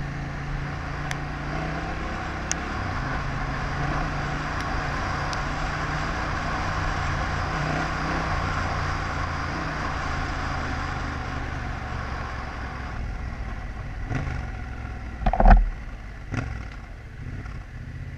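Yamaha Ténéré 700's parallel-twin engine running as the bike rides along a rutted dirt track, with a steady rush of wind and tyre noise. It eases off about two-thirds of the way through, and a few sharp thumps follow, the loudest about 15 seconds in.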